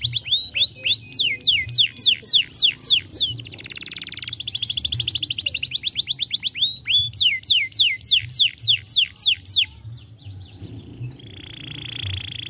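Domestic canary singing: runs of rapid falling whistled notes, about six or seven a second, alternating with a fast rattling trill. A steady buzzy note comes near the end.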